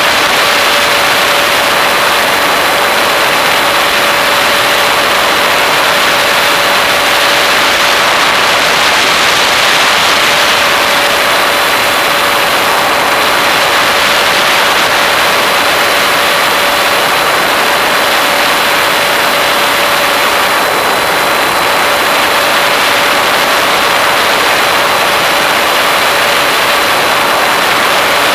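Model aeroplane's motor and propeller running at a steady cruise, heard from the onboard camera: a steady whine over a loud rush of wind.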